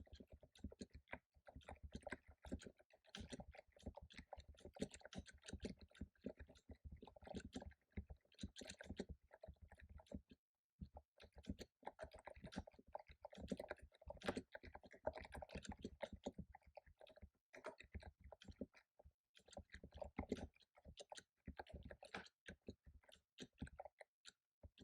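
Quiet typing on a computer keyboard: quick runs of key clicks in bursts, broken by short pauses.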